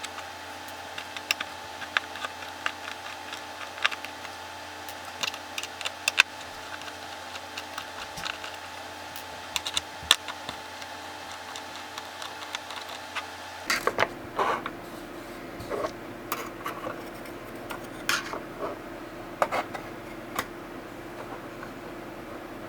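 Scattered light clicks and taps, irregularly spaced, over a steady electrical hum. About fourteen seconds in the hum changes to a lower, different tone, and the clicks carry on.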